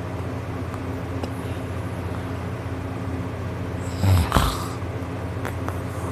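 A sleeping man snoring, with one loud snort about four seconds in, over a steady low hum.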